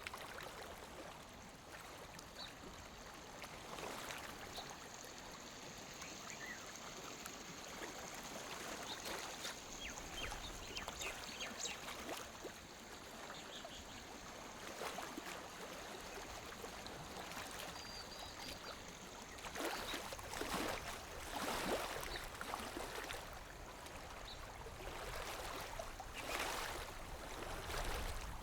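Small waves lapping against a lake shore: soft, irregular splashing that swells every few seconds, strongest about two-thirds of the way in. A faint high steady tone and a few short high chirps sit behind it for the first two-thirds.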